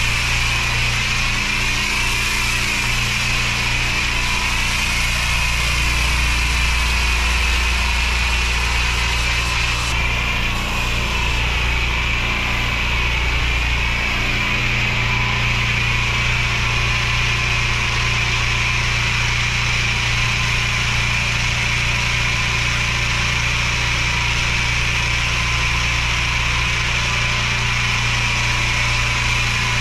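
Pressure washer engine running steadily, with a hiss of water spray as the driveway is washed and treated. The hiss changes abruptly about ten seconds in.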